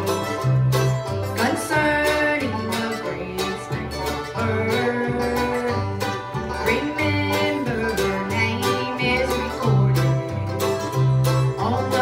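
Bluegrass band playing acoustic guitar, mandolin and upright bass, with plucked strings over a bass that steps between two notes on the beat.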